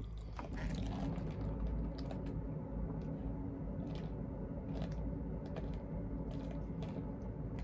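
A person chewing chicken nuggets, with scattered small clicks and rustles over a steady low hum.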